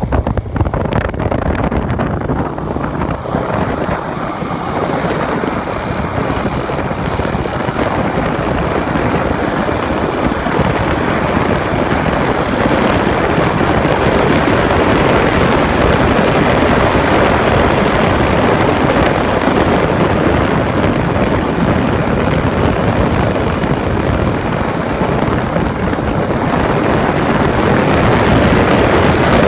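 Honda GROM's single-cylinder engine, big-bored to 181 cc with a performance camshaft, running steadily with a ticking mechanical noise. The owner traces the tick to valve lash that is too loose.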